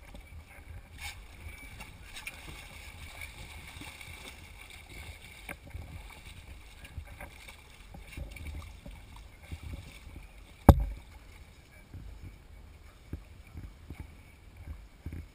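Ambience of a boat on open water: a low, uneven rumble of wind and water against the hull, with one sharp, loud knock about ten and a half seconds in.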